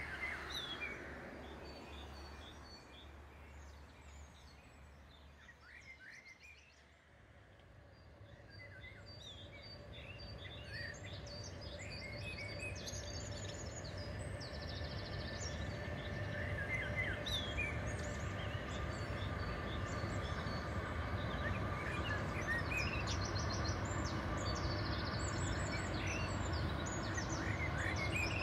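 Songbirds chirping. From about eight seconds in, a steady low rumble builds up and then holds, carrying a faint even hum. It comes from a long freight train of open wagons rolling along the far riverbank and a river cruise ship's engines as the ship passes close by.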